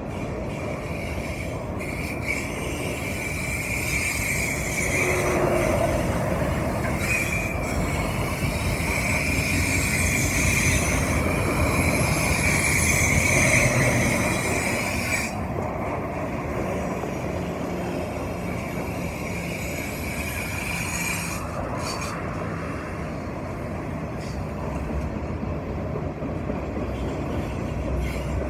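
Freight train of autorack cars rolling past on the rails, with a steady rumble and a high wheel squeal that grows louder toward the middle. The squeal drops sharply about halfway through and fades out a few seconds later, leaving the rumble.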